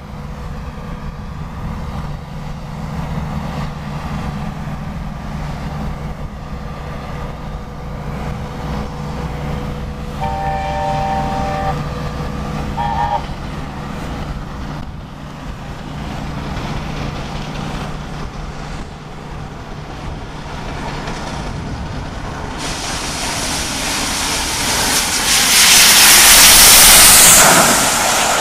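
Gresley A4 Pacific steam locomotive 60019 Bittern approaching at speed: its chime whistle sounds about ten seconds in, one long blast and then a short one, over a steady low drone. Near the end the locomotive passes close with a loud rush of exhaust and wheel noise as its coaches follow.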